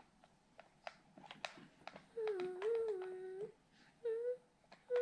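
A few light clicks, then a voice holding a steady mid-pitched tone three times: first for over a second with a dip in pitch, then briefly, then again near the end.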